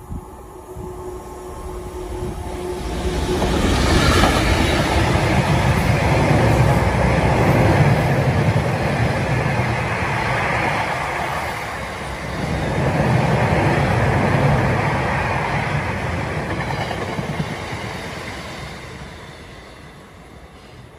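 A Class 66 two-stroke diesel locomotive hauling a freight train of hopper wagons passes through. The noise builds and peaks about four seconds in as the locomotive goes by, then the wagons run past on the rails for about fifteen seconds before fading away.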